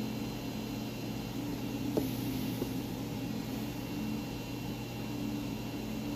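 A steady mechanical hum with a faint high whine over it, and two small clicks about two seconds in, half a second apart.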